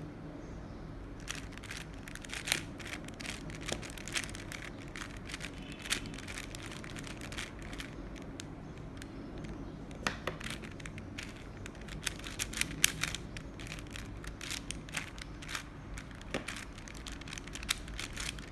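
Plastic Rubik's cube layers being twisted by hand: quick, irregular clicks and clacks, starting about a second in and coming in bunches, with a few sharper snaps.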